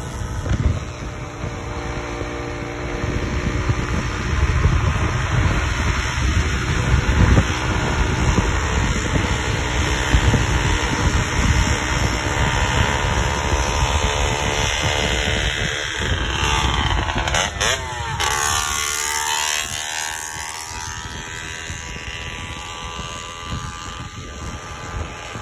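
Wind buffeting the microphone of a moving bike, with a steady hum from the bike's tyres and drive underneath. About seventeen seconds in, the hum's pitch slides down and a different hum takes over.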